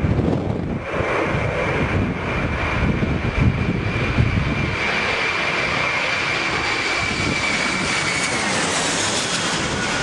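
Jet airliner's engines on landing approach: a steady high whine over a rumble, the whine dipping slightly in pitch near the end. Gusts of wind buffet the microphone during the first half.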